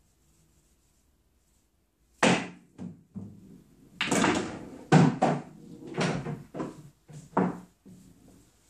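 Pool balls struck and knocking: a sharp hit about two seconds in, then a run of hard knocks and thuds over the next five seconds, the loudest about three seconds after the first hit.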